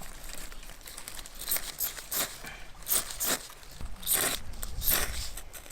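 A handful of short crinkling, scraping noises from tinder and kindling being handled while a campfire is lit.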